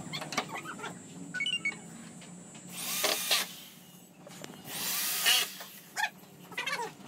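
Power drill running in two short bursts about two seconds apart, with small children's babble and squeals in between.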